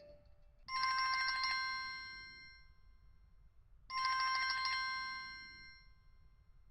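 Samsung Galaxy S4 mini phone playing a trilling, telephone-bell-style ringtone: two rings about three seconds apart, each a rapid trill that rings on and fades away.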